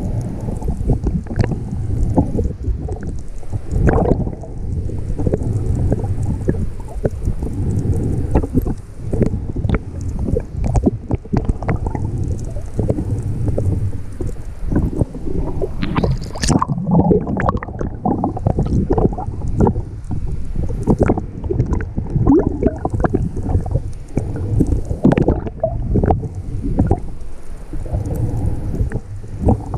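Underwater rumble and crackling of water moving around a GoPro worn on a full-face snorkel mask while snorkeling, muffled by the camera housing, with a faint hiss that comes and goes every couple of seconds.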